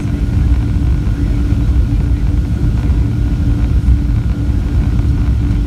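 Airliner cabin noise during approach: the jet engines and rushing air make a loud, steady low rumble, with an even hum running through it.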